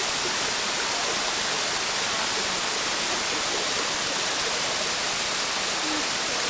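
Small waterfall pouring down a rock face and splashing onto stones: a steady, even rush of water.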